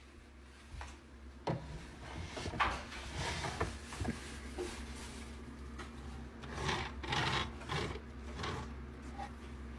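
Kitchen items being handled: irregular clacks, knocks and rubbing as containers and packaging are set down and slid into place, over a faint steady hum.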